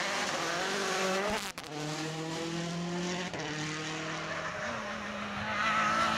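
Rally car engines at high revs on a tarmac stage: a Citroën C4 WRC revving through a bend, then, after an abrupt cut about one and a half seconds in, a Renault Clio rally car approaching under power with a gear change about three seconds in.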